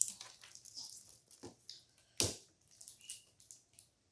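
Small plastic blind-box capsule being handled and pried at: scattered light plastic clicks and rustles, with a sharper click about two seconds in.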